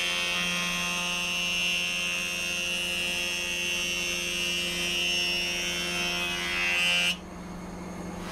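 Sliding table saw running with a steady tone as a board is fed through the blade. The cutting noise grows toward the end of the cut and drops away suddenly about seven seconds in.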